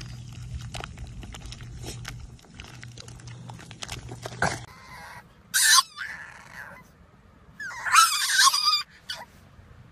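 A French bulldog wallowing in wet mud, with many short wet splats and squelches over a steady low hum. Then a French bulldog puppy gives a short high yelp and, a couple of seconds later, a longer, louder wavering howl.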